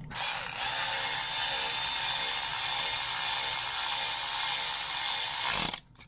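Cordless electric ratchet running steadily for about five and a half seconds, driving in a timing belt tensioner bolt, then stopping abruptly. The bolt is going in nice and easy.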